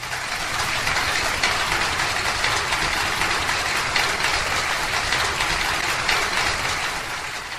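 Audience applauding at the end of a live song, swelling in over the first second, holding steady, and tapering off near the end.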